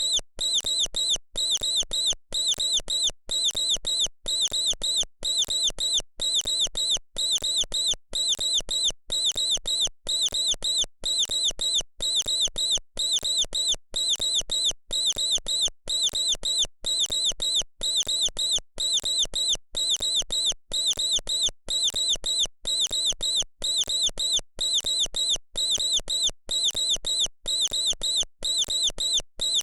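Mouse squeaking: short, high-pitched squeaks repeated over and over in a steady, even rhythm, like one short recording looped.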